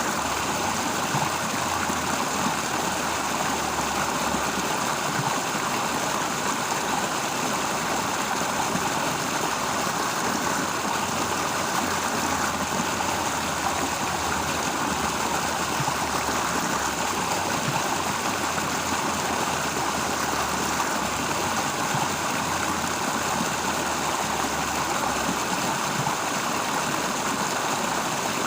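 Steady rush of a flowing stream, an even, unbroken water sound, with a low rumble underneath that comes and goes.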